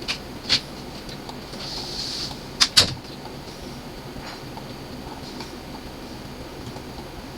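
A few sharp computer mouse clicks, with a brief rustle about two seconds in followed at once by a loud quick double click, then a couple of faint clicks.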